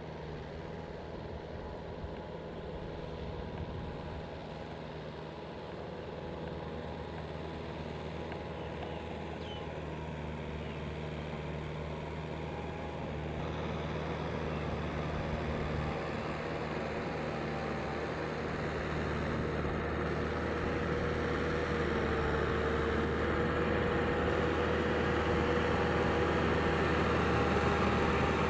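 Farm tractor's diesel engine running under load as it works a rotary tiller through deep paddy mud, steady and growing gradually louder.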